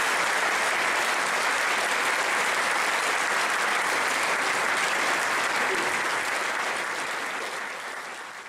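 A hall audience applauding steadily, fading out near the end.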